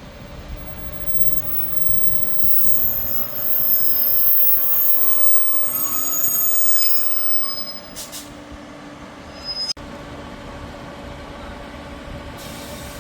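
Train on the line with a high-pitched squeal of its steel wheels, several shrill tones over a low rumble, loudest a few seconds in and cutting off sharply about two-thirds of the way through.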